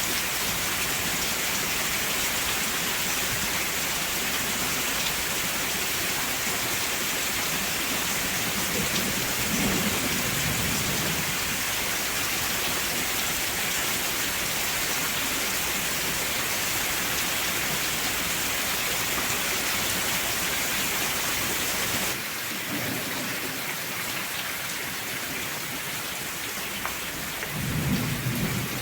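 Steady heavy rain, with low rolls of thunder twice: about ten seconds in and again near the end. About two-thirds of the way through, the rain abruptly becomes a little softer.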